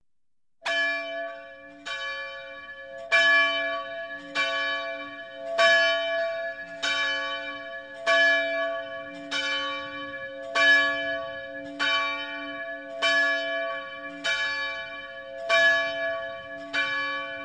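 A single bell tolling slowly, struck at the same pitch about every 1.2 seconds, each stroke ringing on into the next.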